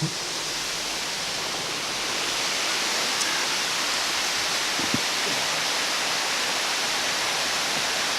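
Steady rush of a waterfall's falling water, growing a little louder about two seconds in.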